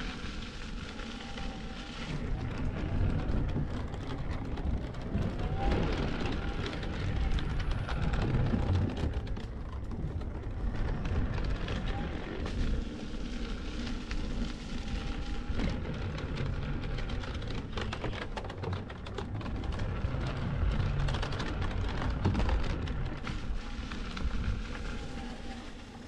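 Wind rumbling on the microphone, and the tyre of an InMotion V12 electric unicycle crackling and crunching over a sandy gravel trail as it rolls along.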